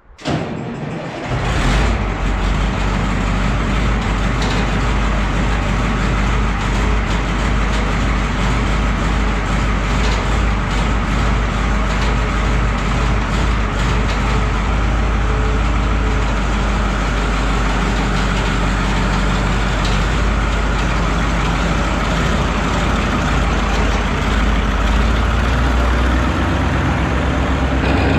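Oliver 2255's Caterpillar 3150 V8 diesel being cold-started with a manifold preheater: the starter cranks for about a second and a half, then the engine catches and settles into a loud, steady idle.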